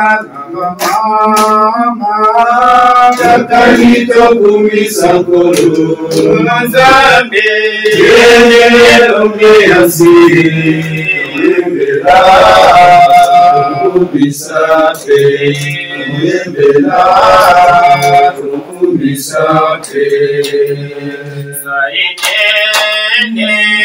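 A group of mostly male voices singing the entrance hymn that opens the Mass, with hand claps along with the singing.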